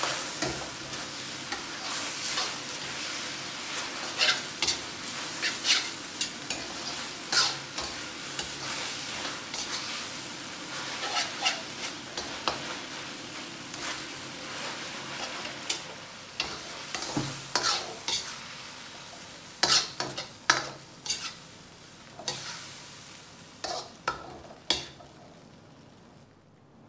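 Noodles, tofu and vegetables sizzling in a steel wok while a metal spatula stirs and tosses them, clanking and scraping against the wok at irregular intervals. The sizzle slowly fades toward the end.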